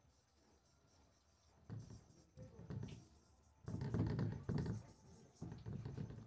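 Marker pen writing a word on a whiteboard: a run of short scraping strokes that starts a little under two seconds in and is loudest around the middle.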